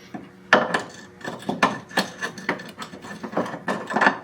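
Irregular clicking and knocking of metal parts being handled as a new engine mount is worked into its seat, several sharp knocks a second starting about half a second in.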